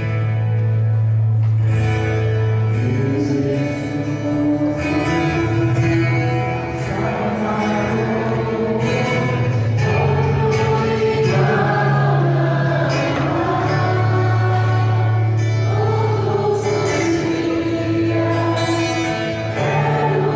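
Christian song: voices singing a melody, with a choir, over an accompaniment of long held bass notes.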